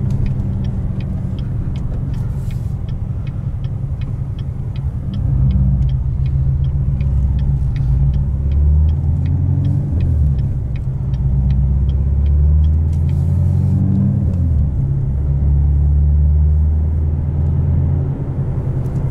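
Modified 2015 Corvette C7 Stingray's 6.2-litre LT1 V8, with headers, a cam and no muffler, heard from inside the cabin while driving: a loud, deep exhaust drone that gets louder about five seconds in and rises and falls after that. A light, fast, even ticking sits over it.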